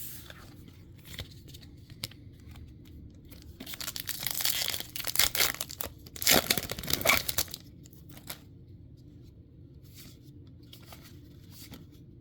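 Foil wrapper of a Magic: The Gathering booster pack being torn open and crinkled, in two noisy bursts about four and six seconds in, with light clicks from handling around them.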